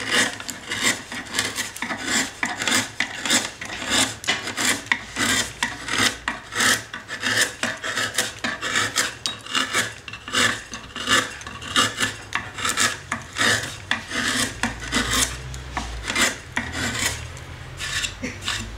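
A luthier's hand tool rasping or scraping a piece of violin-making wood in quick, repeated strokes, about two a second.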